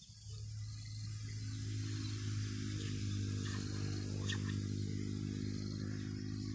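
Steady low hum of a running motor, building up over the first two seconds and then holding at an even pitch, with a few faint clicks over it.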